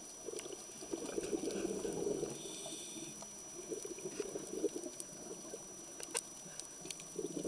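Muffled underwater sound picked up by a camera in a waterproof housing: bubbling, crackling water noise with a few sharp clicks, the loudest about six seconds in, over a faint steady high whine.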